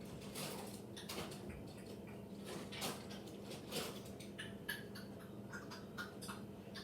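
Pencil scratching on cardboard in short, irregular strokes as circles are traced.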